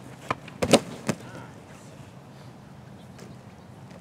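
Thuds of a soccer ball being handled and struck in goalkeeper practice: three sharp thumps within the first second, the middle one loudest, then a faint knock about three seconds in.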